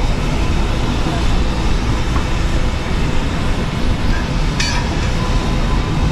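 Steady low rumble inside a moving vehicle, with a single short click about four and a half seconds in.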